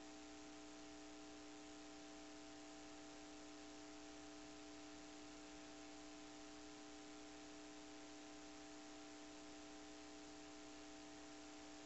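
Near silence: a faint steady hiss with a low steady hum, the recording's noise floor.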